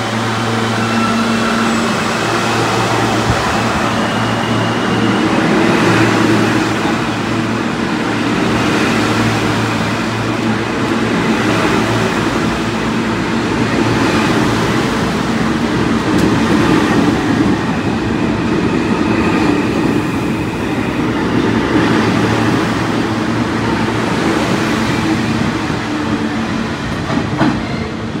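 R160A New York City subway train pulling out of the station and running past. Its wheels and motors make a continuous rumble, with faint steady high tones over it.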